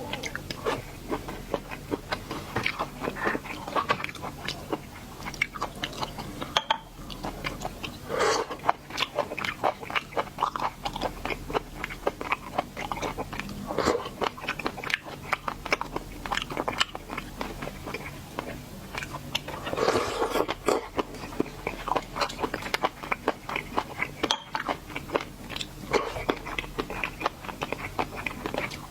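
Close-miked eating of seafood: continuous wet chewing and biting, with dense small clicks and crunches and a few louder bursts of chewing.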